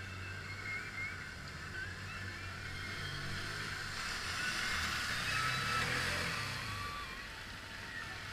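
Side-by-side UTV engine running and revving as it ploughs through a muddy water hole. The splashing water builds to its loudest about two-thirds of the way through, then fades as the machine passes.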